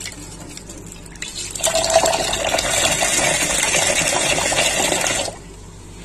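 Kitchen tap water running into a plastic bowl of rice, filling it with rinse water to wash the rice. It starts about one and a half seconds in and stops abruptly about five seconds in.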